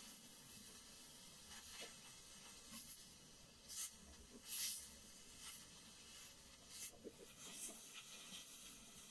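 Miniature wooden chopsticks stirring diced vegetables in a tiny ceramic pan: a scattered series of short, faint scrapes and taps, the loudest two a little before the middle, over a steady soft hiss.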